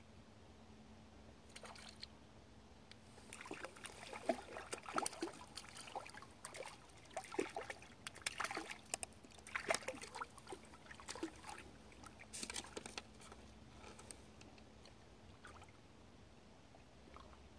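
A hooked yellow perch splashing at the water's surface close in, in a quick, irregular run of small splashes between about four and thirteen seconds in.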